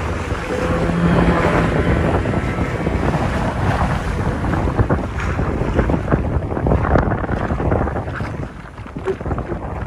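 Motorboats running fast on choppy sea: wind buffeting the microphone over the rush of water and spray, with outboard-motor noise underneath.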